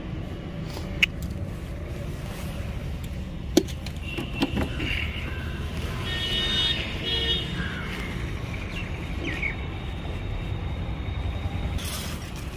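Steady rumble of road traffic, with a few sharp clicks and knocks of work going on and a brief high-pitched tone in the middle.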